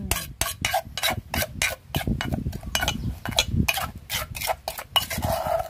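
Metal spoon stirring and scraping thick chili paste around a granite mortar: a quick, even run of clicking scrapes of steel on stone, several a second.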